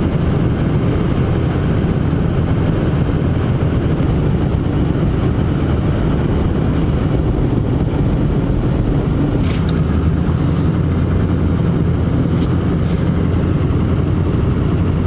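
Road and engine noise inside a vehicle's cabin while driving on snowy roads: a steady low drone with tyre hiss, and a few short clicks about two-thirds of the way through.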